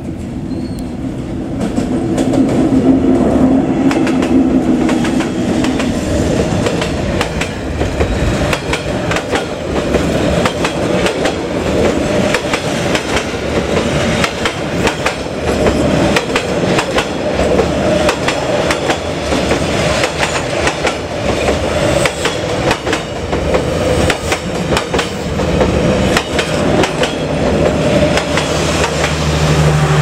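Diesel locomotive hauling a long train of passenger coaches past at close range, the wheels clattering over the rail joints in a steady clickety-clack. A steady low hum joins in near the end.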